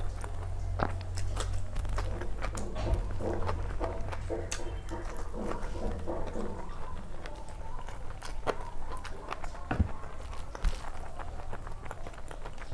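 A person eating close to the microphone: chewing, with many small irregular wet mouth clicks and light crunches.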